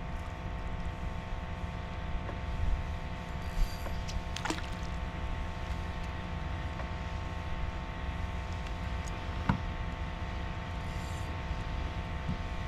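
Boat motor running steadily, a continuous hum of several steady tones over a low rumble, with a few short clicks.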